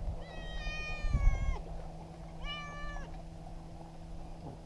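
A cat meowing twice: a long call of about a second that drops in pitch at the end, then a shorter one about two and a half seconds in. Under it runs a steady low hum, with a dull bump about a second in.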